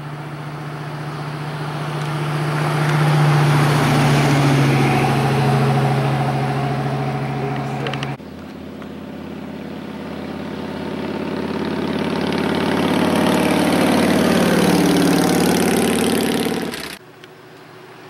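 A 1997 Dodge Ram 1500 pickup driving past, its engine growing louder and then fading, measured at 86.4 dB maximum. About eight seconds in it cuts to a 1999 Harley-Davidson Heritage motorcycle approaching and passing, rising to its loudest near the end, measured at 89.9 dB maximum, before cutting off about a second before the end.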